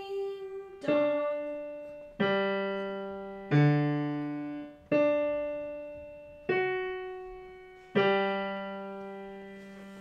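Digital piano played slowly and loud, six separate strikes of single notes and two-note chords about every second and a half, each left to ring and fade; the last one dies away near the end.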